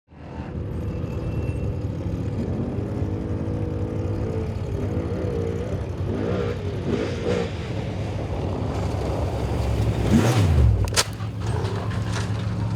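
Off-road race vehicle engines revving, their pitch rising and falling. About ten seconds in, one passes close with a loud drop in pitch, followed by a few sharp knocks.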